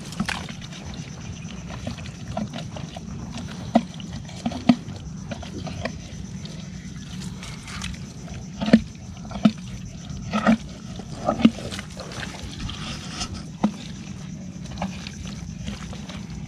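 Intermittent splashes and sloshes in shallow swamp water and mud, a dozen or so short sharp ones scattered through, over a steady low background noise.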